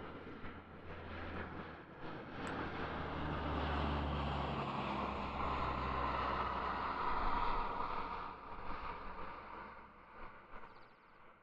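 An airplane passing overhead: a broad engine drone with a low hum that swells over the first couple of seconds, holds loudest through the middle, then fades away near the end.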